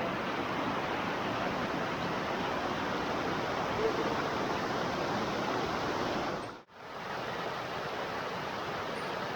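Steady rush of a waterfall's falling water, an even roar. It cuts out for an instant about two-thirds of the way through, then comes back unchanged.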